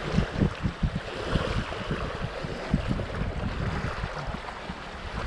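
Small waves washing against the lakeshore, with wind buffeting the microphone in low thumps, most of them in the first second or so.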